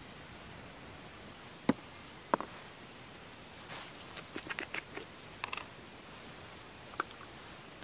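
Two sharp clicks, then a run of small plastic crackles and clicks as gloved hands twist the screw cap and inner lid off a small plastic bottle, with one more click near the end.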